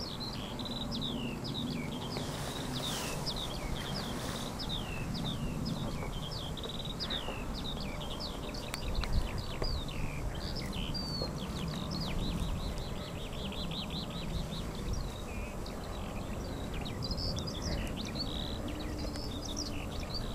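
Many songbirds singing together in a dense chorus of quick, high, falling chirps and trills, over a steady low rumble of background noise.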